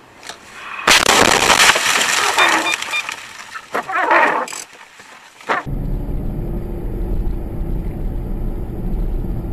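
A vehicle collision: a sudden loud crash about a second in, with crunching and breaking for a couple of seconds. After a cut, a steady low rumble of a running vehicle.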